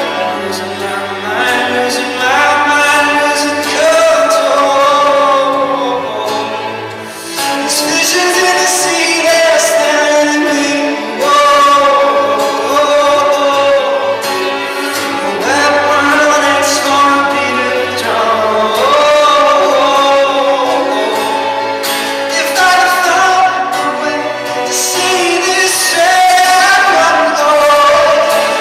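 Live male singing with instrumental accompaniment, in a church's reverberant space; the voice rises and falls in long sung phrases over steady backing.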